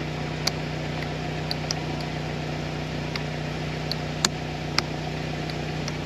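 A 2003 Saturn Ion idling with a steady low hum, and a few light clicks scattered through it.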